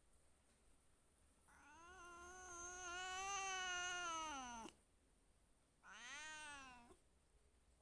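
Domestic cat meowing twice: a long drawn-out meow of about three seconds that drops in pitch as it ends, then a shorter meow of about a second.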